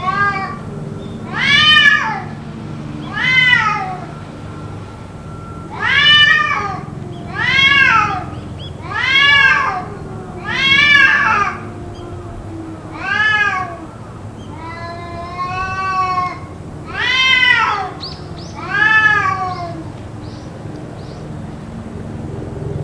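A cat yowling over and over: about ten long, loud meows, each rising and then falling in pitch, coming every second or two, with one longer, flatter cry past the middle. The uploader wonders whether it is a cat fight.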